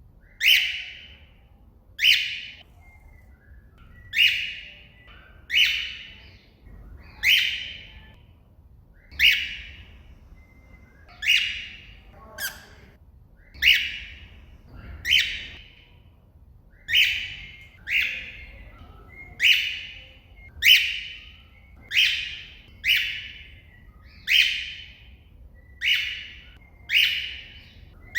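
A cockatiel giving its contact call over and over, about twenty short, loud calls that each drop in pitch, one every second or so. It is calling out to another cockatiel.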